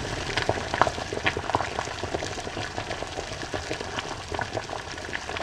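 Kimchi stew boiling in an earthenware pot: a steady run of small irregular bubbling pops.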